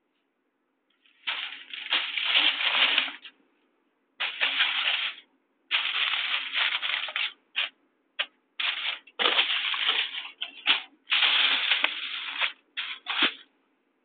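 Handheld RF/microwave meter's speaker crackling and buzzing in about ten irregular bursts, some under half a second, others one to two seconds long.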